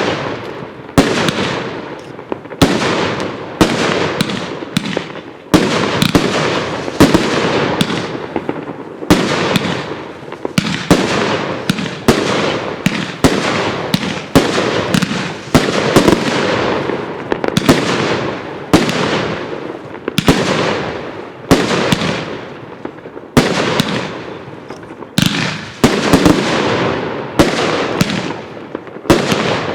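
A 37-shot consumer fireworks cake, the Paradise of Beauty, firing shot after shot at about one a second. Each shot is a sharp bang followed by a crackling tail that fades.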